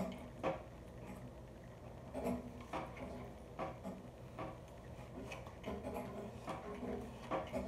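Hair straightener in use: scattered irregular clicks and taps as the flat iron is clamped on and drawn down sections of long hair, with soft handling and rustling between them.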